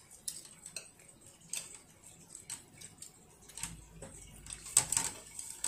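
Irregular light clicks and taps of wooden chopsticks against each other and on a plate, with a louder cluster of clicks near the end.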